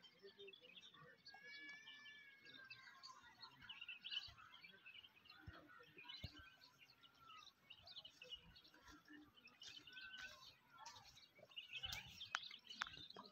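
Near silence with faint bird chirps and calls, including a few short whistled calls about a couple of seconds in.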